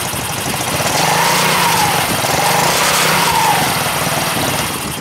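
Small scooter-type engine of a Chinese Grom clone running with its CVT drive open and a freshly fitted belt, being tested to see that the belt rides correctly. It is revved up and back down twice between about one and four seconds in.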